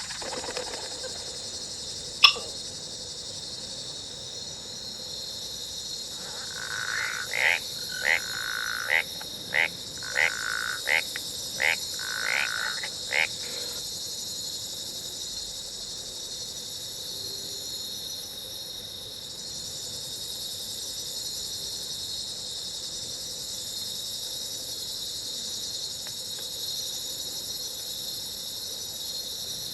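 Jungle ambience sound effect. A steady high insect drone carries through it, with a single sharp click about two seconds in. Between about 7 and 13 seconds comes a run of about nine frog-like croaks, roughly one every 0.7 seconds.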